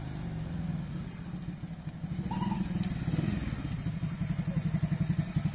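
Small motorcycle engine running at low speed with a rapid, even pulsing beat, growing louder over the last few seconds as the bike rides closer.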